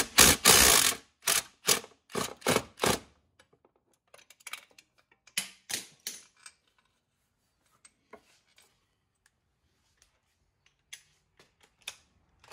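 Ratchet wrench on a long extension clicking in a quick run of strokes as it undoes a top gearbox-to-engine bolt, then a few weaker clicks that thin out to occasional faint ticks.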